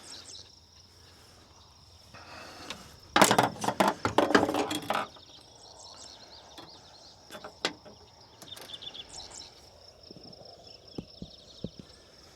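Insects chirring steadily in a high thin tone, with a loud patch of rustling and clicking handling noise about three seconds in that lasts nearly two seconds, and a few single clicks after it.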